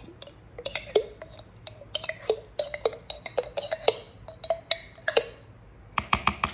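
A metal spoon scraping and clinking against a glass jar of sweet relish as it is scooped out, in irregular sharp clicks, some with a short ring. Near the end comes a quick run of about eight sharp taps a second.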